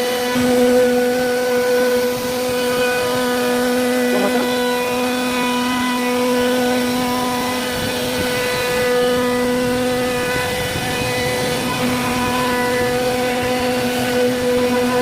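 CNC router spindle running and carving wood, a steady high whine whose lowest tone drops out briefly a few times as the cut changes.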